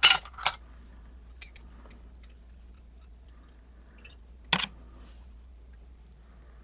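Sharp small metal clicks and taps from handling a lock cylinder and its tools: two near the start, a few faint ticks, and a louder click about four and a half seconds in.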